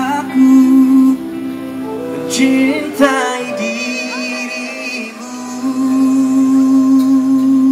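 Live band music with a male singer holding long, wavering sung notes over electric guitars, the last note held for a couple of seconds.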